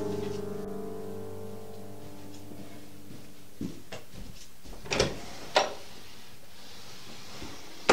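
A held musical chord dying away over the first few seconds, then a few soft knocks and two sharper knocks on a wooden door about five seconds in, half a second apart.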